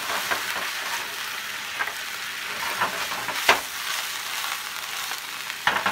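Cucumber and leek slices sizzling in a skillet of oil, wine and lemon juice over a gas flame as the liquid reduces. Two sharp knocks as the pan is shaken, the louder about three and a half seconds in and another near the end.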